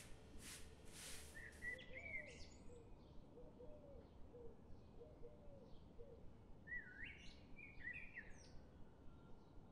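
Faint birdsong: short chirps with quick rising and falling notes about two seconds in and again near the end, with a lower call repeated in between. In the first second, a few soft rustles of cotton fabric as hands smooth the tote bag flat.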